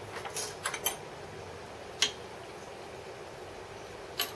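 Light clicks and knocks of metal parts and tools being handled on a workbench: a quick cluster of clicks near the start, a single click about two seconds in and another near the end, over a faint steady background.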